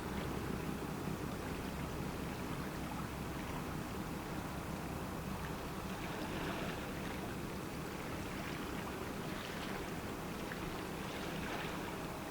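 Steady low droning hum of harbourside machinery and distant traffic under a light hiss, with a couple of soft swells in the hiss partway through and near the end.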